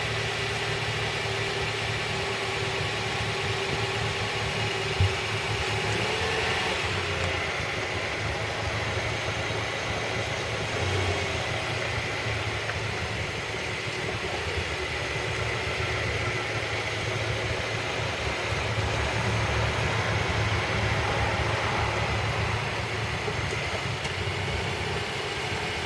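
Bounce house air blower running steadily: a constant motor drone with a faint held whine.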